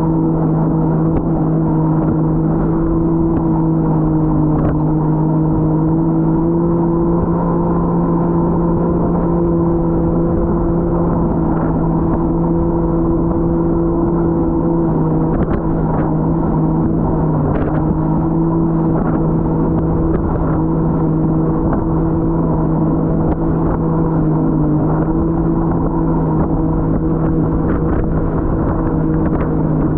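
Jet ski engine running loud and steady at a held speed, its pitch dipping slightly a couple of times, with occasional short knocks.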